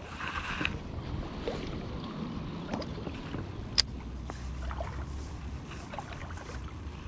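Creek water running and splashing, with a few sharp clicks over it.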